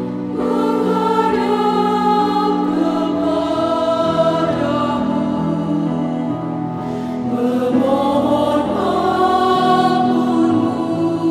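Mixed choir of men's and women's voices singing in sustained chords, the notes shifting step by step, growing louder about eight seconds in.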